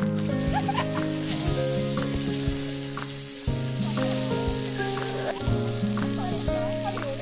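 Whole saury frying on a multi griddle pan, a steady sizzle with scattered pops and crackles. Soft background music with a regular beat plays over it.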